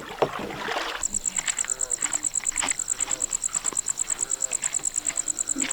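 A cricket-like insect trilling in a high, rapid, evenly pulsed rhythm, starting abruptly about a second in, with fainter night calls lower down behind it.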